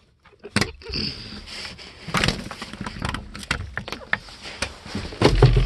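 Scuffle with an attacking rooster: a quick, irregular run of sharp knocks and rustling scuffles as the bird goes at the man and is fought off, ending in a heavy thump about five seconds in.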